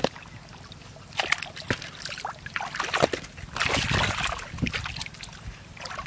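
Shallow water splashing and sloshing in irregular bursts, busiest around four seconds in, as fish and eels are caught by hand and thrash in the water.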